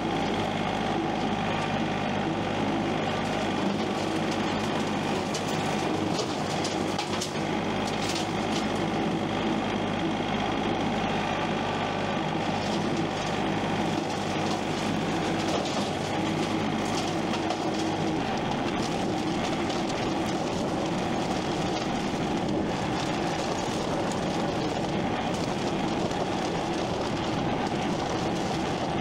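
A heavy engine running steadily under load, its low tone changing about 18 seconds in.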